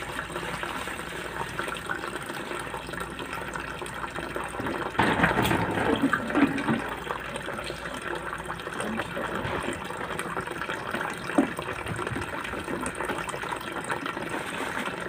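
Liquid streaming from a hose into a plastic bucket of slurry, a steady splashing and bubbling. It is louder for a second or so about five seconds in, with one brief knock about eleven seconds in.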